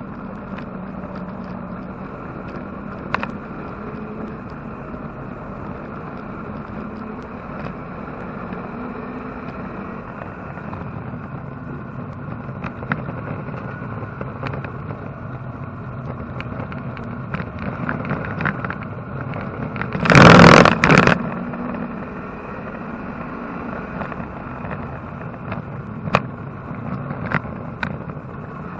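Chevrolet-engined Porsche 944 race car's engine running hard on a track lap, heard from inside the cabin, with a few sharp knocks and a loud burst of noise lasting about a second roughly twenty seconds in.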